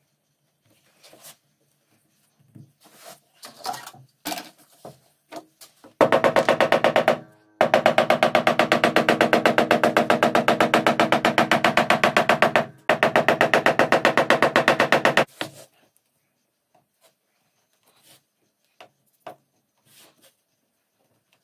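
A handheld power tool runs against the edge of a leather panel in three bursts, about nine seconds in all, with a fast, even rattling pulse; it starts about six seconds in. Before and after it there are light taps and scrapes of the leather and tools being handled.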